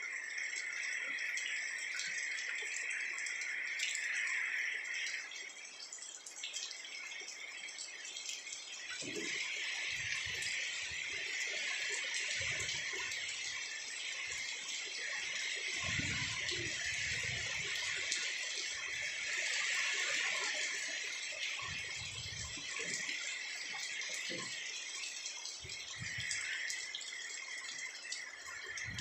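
Heavy rain pouring down steadily, with gusts of strong wind rumbling against the microphone at intervals through the middle.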